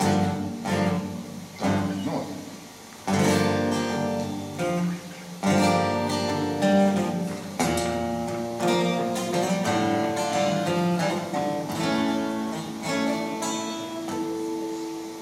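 Solo acoustic guitar playing the instrumental introduction to a song: a run of strummed and picked chords, each struck sharply and left to ring, with the last chord fading near the end.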